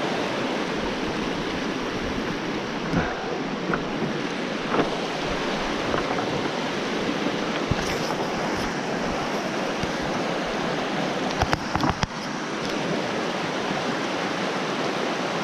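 Steady rush of a shallow river running over rocks and small rapids. A few brief clicks and knocks near the middle.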